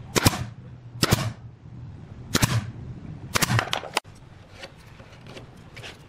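Pneumatic brad nailer firing brads into pine molding: a string of sharp shots about a second apart in the first four seconds. After that only faint taps of wood pieces being handled.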